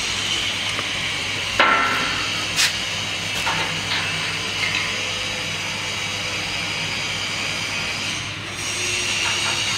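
A few sharp metallic knocks and clinks as steel parts on the frame of a hexagonal wire netting machine are handled by hand. The first knock, about a second and a half in, is the loudest and rings briefly. Under them is a steady workshop hum and hiss.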